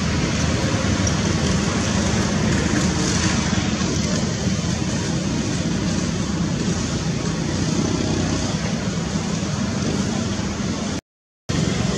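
Steady, loud rushing outdoor background noise with no clear pitch or rhythm, dropping out for about half a second near the end.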